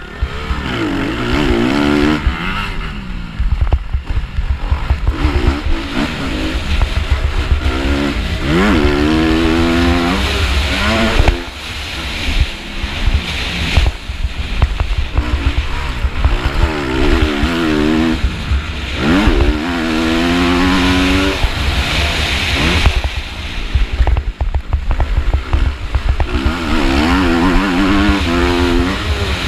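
MX2 motocross bike engine at race pace, heard close from the rider's own machine. The revs climb and fall back again and again as the rider accelerates out of corners, shifts and rolls off for the next turn.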